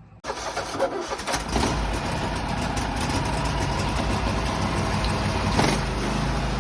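Husqvarna riding mower engine cranking on its starter and catching after about a second, then running steadily, with a slight change in its note about five and a half seconds in. It now cranks and starts because the blown fuse behind the no-crank fault has been replaced.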